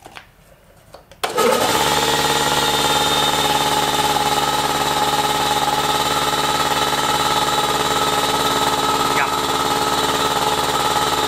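Belt-driven electric piston air compressor switching on about a second in and running steadily. It is being test-run with its tripping motor protection switch newly replaced, and it runs.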